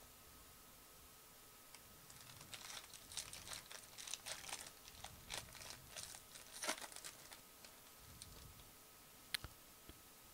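Plastic packaging crinkling and rustling in irregular spurts as trading cards are handled with gloved hands, with one sharp click about nine seconds in.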